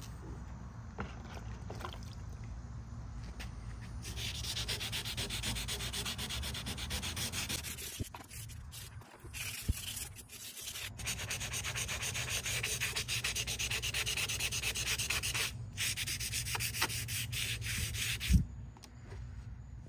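A hand-held sanding pad rubbed briskly back and forth along painted window trim molding, in rapid even strokes. The strokes come in two long runs with a lighter break a little under halfway through, and a single sharp knock near the end.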